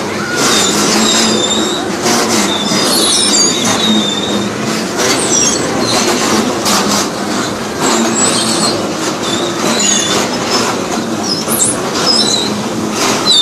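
Indoor bumper car ride: a steady loud din of the running cars with many short high-pitched squeals and occasional knocks as the cars bump.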